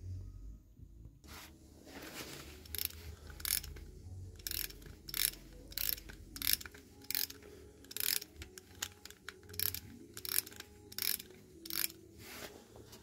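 Clockwork spring motor of a Bing gauge 0 tinplate locomotive being wound with its key: the ratchet clicks in short bursts, about two a second, one for each twist of the key, starting about a second in.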